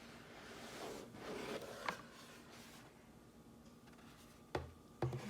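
Packaging being handled: a rustling, scraping swell lasting about two seconds that ends in a sharp click, then quieter handling and a dull thump near the end.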